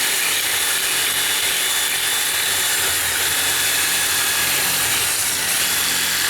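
Power drill running steadily while its drill bit is dragged sideways along the edge of a metal deadbolt strike plate, grinding it down to ream the opening and clean off the sharp edge so the deadbolt no longer rubs.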